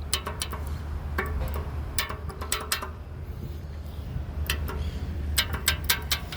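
Crosswalk push-button pedestrian signal clicking and ticking, with irregular sharp clicks that come in quick clusters near the middle and toward the end. A steady low rumble runs underneath.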